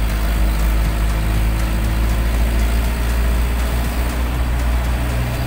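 Cabin noise of a moving car: a steady low engine and road rumble with tyre noise on a wet concrete road.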